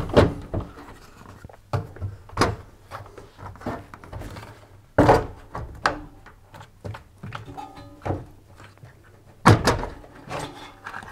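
The plastic front drum support of a Hoover tumble dryer being lifted, unhooked and handled off the cabinet. It gives a string of hollow plastic knocks and clicks, with the loudest thunks about five and nine and a half seconds in.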